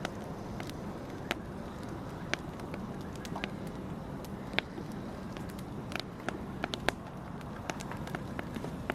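Fire burning with a steady low rush of flame and irregular sharp crackles and pops, a dozen or so, a few of them louder.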